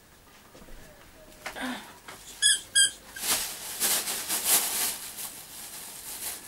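Dog toy squeaker squeaked twice in quick succession, then rustling as the dog roots about in the bag and torn stuffing.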